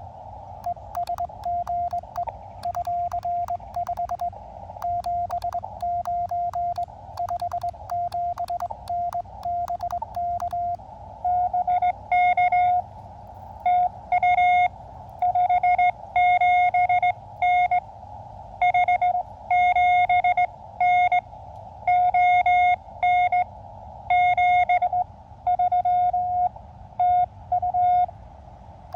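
Morse code on an Elecraft KX2 transceiver, a tone near 700 Hz keyed on and off over receiver hiss. For about the first eleven seconds the operator sends with KXPD3 paddles worked as a cootie key: the sidetone comes with a sharp click of the paddle contacts at each element. Then a louder, harsher Morse tone with no clicks takes over: another station coming back over the receiver.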